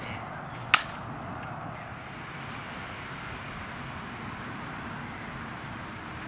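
A single sharp crack, a very short hard impact about a second in, over a steady outdoor background hiss.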